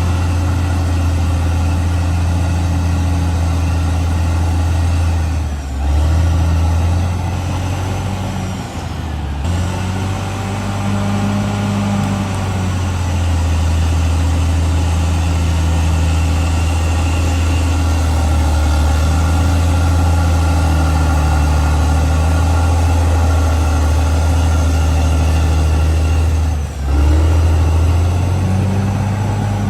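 CAT D6R XL bulldozer's diesel engine running steadily, with brief dips about six, nine and twenty-seven seconds in.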